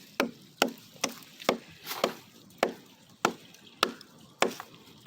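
A hammer striking the wood of an old tree trunk over and over, about two blows a second, each a sharp knock.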